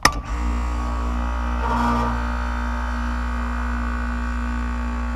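A click, then an air-conditioner compressor starting and running with a steady hum, its burned terminal wiring just rebuilt with a terminal kit.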